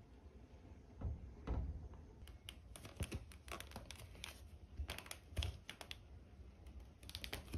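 Faint, scattered small clicks with a few soft low thumps, the loudest of them about a second and a half in.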